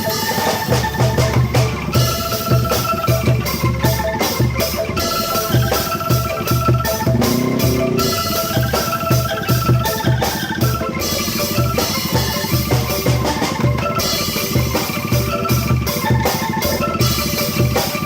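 Angklung street-band music with a steady drum beat: a regular low thump under held pitched notes and sharp, bright ticks.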